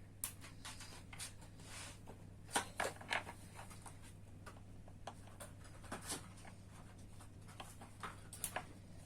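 Small plastic toy pieces being handled and fitted into a toy car: light clicks and scrapes, the loudest a quick run of three about two and a half to three seconds in.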